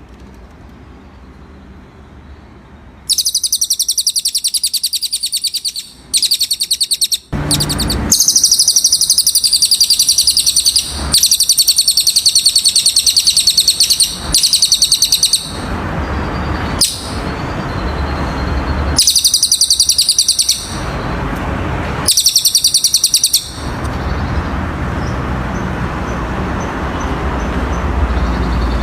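Cililin bird singing: several bouts of a fast, very high trill, each a few seconds long with short breaks between, over a steady low rumble.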